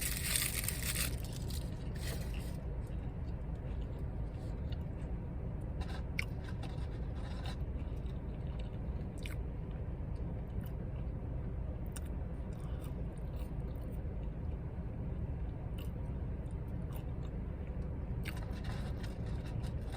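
A person chewing food close to the microphone, with scattered faint clicks and smacks over a steady low background hum.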